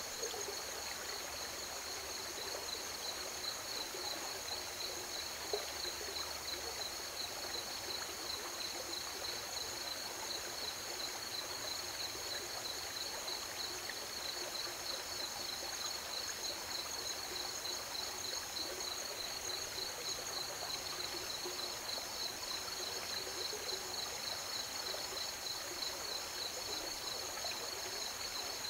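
A chorus of crickets trilling steadily at two high pitches, over river water flowing.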